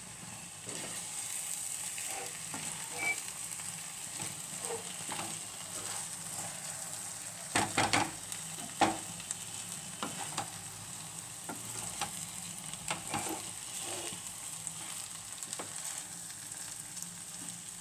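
Wooden spatula stirring and turning biryani rice in a non-stick pan over a steady sizzle of frying. Scattered knocks and scrapes of the spatula against the pan come and go, the loudest cluster about eight seconds in.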